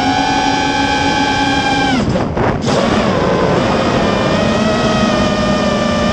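Spedix Black Knight 210 racing quadcopter's brushless motors and propellers whining at a steady pitch. About two seconds in the throttle is chopped and the pitch drops sharply. Under a second later it powers back up to a steady whine.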